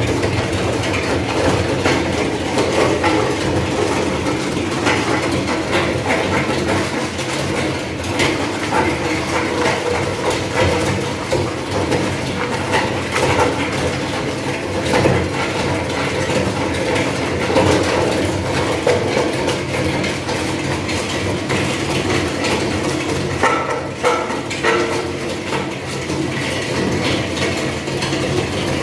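Industrial wood shredder driven by an electric motor, running under load as it chops wood waste, with a steady low hum and a dense crackling. Shredded wood chips clatter continuously out of the discharge chute into a plastic tub.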